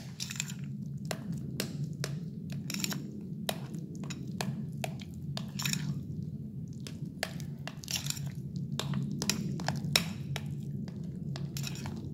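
Metal spoon stirring thick flour-and-water batter in a glass bowl: irregular clinks and scrapes of the spoon against the glass, over a steady low hum. The batter is being mixed until smooth.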